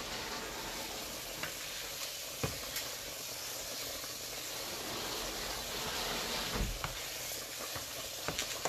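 Raw ground beef sizzling steadily in a skillet as it browns, stirred and broken up with a silicone spatula, with a few short knocks of the spatula against the pan and a small cluster of them near the end.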